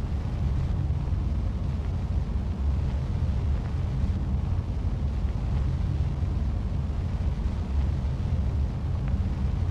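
A low, steady rumble with no clear pitch.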